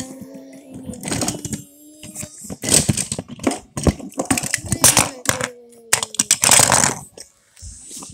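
Plastic toy trains and track pieces being handled, giving a rapid run of clicks and clattering knocks, with a low held tone in the first two seconds and again around five seconds in.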